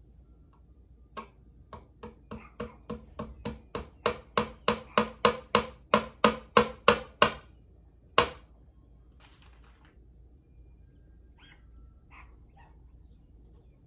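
Claw hammer tapping a small nail into a wooden board cushioned on a folded towel: a quick run of about twenty light blows, about four a second, growing louder, then one harder final blow.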